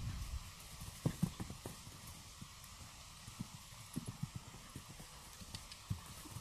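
A horse's hooves striking arena sand as it moves at speed: scattered dull hoofbeats, bunched about a second in and again around four and six seconds.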